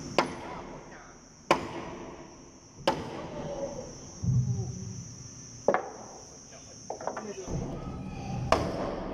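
About five sharp knocks and a lighter one, irregularly spaced a second or more apart: hammer blows on the timber planks of a traditionally built wooden boat hull as they are fitted. A steady high insect buzz runs underneath.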